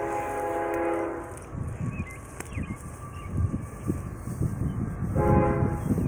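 Diesel locomotive air horn sounding as a train approaches the grade crossing: a chord of several steady notes held for about a second and a half at the start, then another blast starting near the end. Between the blasts a low rumble builds.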